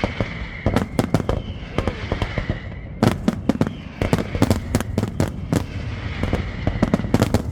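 Fireworks going off in a rapid, irregular barrage of sharp bangs and crackles, easing briefly about two and a half seconds in before picking up again.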